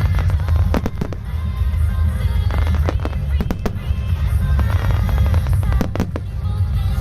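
Starmine firework barrage: a rapid, irregular string of sharp shell bursts going off one after another, over music playing with the display.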